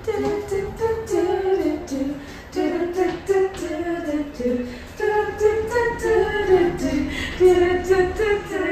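A woman's voice singing a melody over a light, steady beat.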